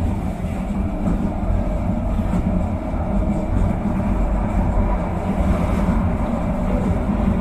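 LRT-1 light-rail train running, a steady low rumble with no break.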